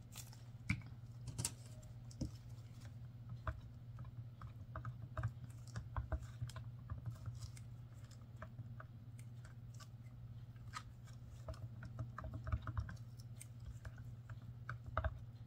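A stir stick scraping and tapping against the inside of a plastic bottle as epoxy resin is mixed with white ink: irregular small clicks and scrapes, over a steady low hum.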